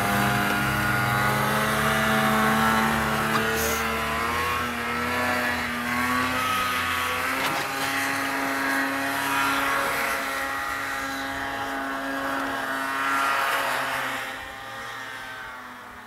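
Snowmobile engine running steadily as the machine pulls away through deep powder snow, its pitch wavering slightly and the sound growing fainter near the end.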